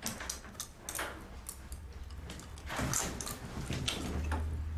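A scattered series of light clicks, knocks and rustles, as of small objects being handled, with a low hum coming in near the end.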